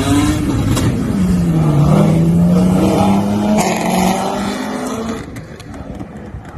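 Car engine revving hard at high rpm. Its pitch climbs and dips, holds fairly steady for a few seconds, then eases off near the end.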